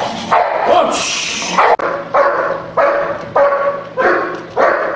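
A German shepherd-type protection dog barking repeatedly, about two barks a second, from about two seconds in: warning barks at a man in a bite suit. Before that there is a loud, hissing rush of noise.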